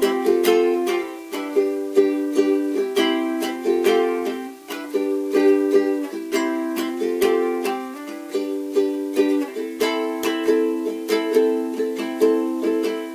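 Cordoba ukulele strummed in a steady rhythm, moving through a chord progression as an instrumental break between sung verses, in a small room.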